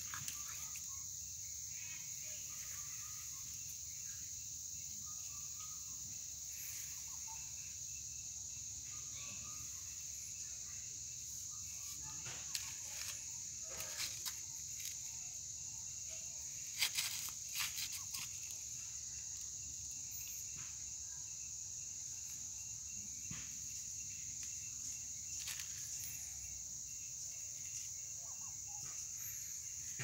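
A steady, high-pitched insect chorus drones on without a break. A few short clicks and rustles stand out around the middle.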